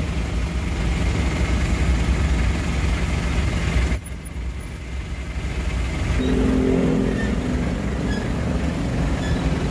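Steady low rumble of a vehicle's engine and road noise heard from inside the cab in slow traffic. It drops off suddenly about four seconds in, and a low droning note comes in near six seconds.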